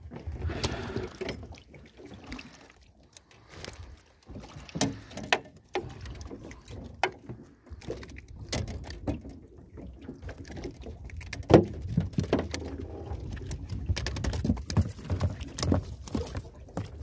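Scattered knocks, clicks and thumps in an aluminium boat as a fishing rod, line and caught fish are handled, over a steady low rumble. One sharp knock about halfway through is the loudest.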